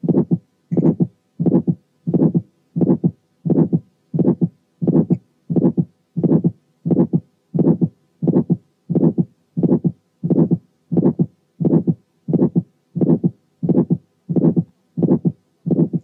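Recorded heart sounds of early aortic stenosis with thickened but still mobile valve cusps: the first heart sound, straight after it an ejection click, then an ejection systolic murmur and the second heart sound. The beats repeat regularly at about 90 a minute.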